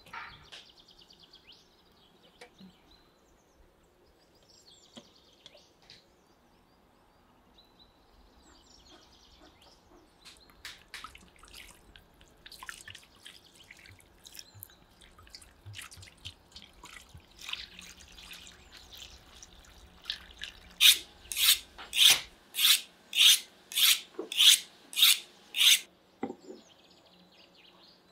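Water poured from a jug splashes and trickles over boiled beef tongues in a metal bowl, with birds chirping. Near the end come about ten loud rasping strokes, roughly two a second.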